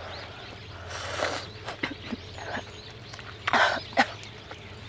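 Eating sounds: two short mouth noises while chewing, with several sharp clicks of a metal spoon and tongs, and birds chirping faintly.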